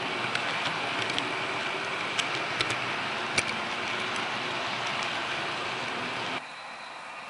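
Model passenger train rolling along its track, heard from on board: a steady rushing rattle of wheels on rails with scattered sharp clicks. About six seconds in it cuts off abruptly to a quieter steady background.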